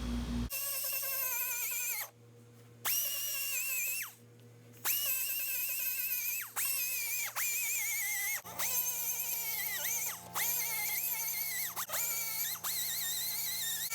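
Background music: a melodic lead line with short downward pitch drops at the ends of phrases, cutting out briefly twice near the start. A deeper steady layer joins about eight and a half seconds in.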